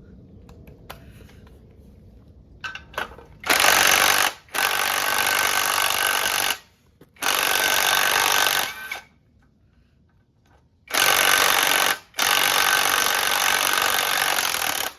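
Impact driver hammering in five bursts of one to two seconds each, starting about three and a half seconds in, as it works loose very tight bolts. Before the first burst there are only a few small handling clicks.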